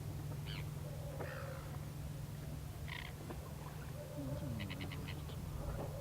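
Birds calling outdoors in short, scattered notes, with a quick run of about six clicks near the end, over a steady low hum.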